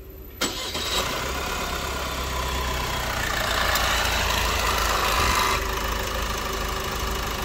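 Opel Astra K engine catching about half a second in and running, after a new timing chain set and oil pump. Its sound builds over the next few seconds and settles a little lower near the end.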